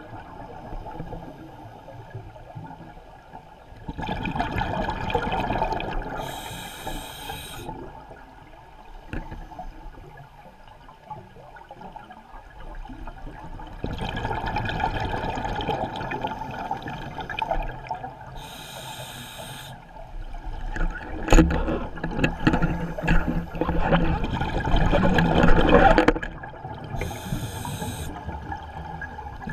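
Scuba diver's regulator breathing underwater, heard through the camera housing: long bubbling, gurgling exhalations, each followed by a short hiss of inhalation through the demand valve. About three breaths.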